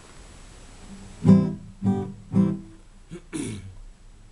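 Acoustic guitar strummed: three chords about half a second apart, then a lighter, scratchier stroke, opening the song's accompaniment.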